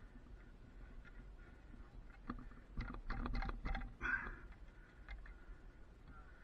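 Metal clicks and knocks from hands working a cable lasher over coaxial cable and steel messenger strand, bunched in the middle, with a short scrape about four seconds in.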